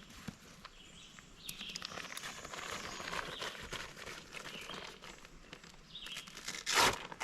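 Footsteps and rustling of camping gear being handled on the forest floor, with a series of small clicks and crinkles and a loud rustle near the end.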